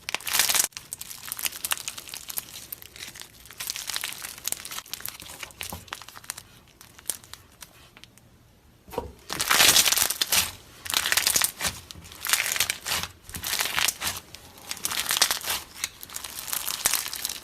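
Slime being squished and stretched by hand, giving runs of crackly, crinkling pops with a quiet pause about halfway through.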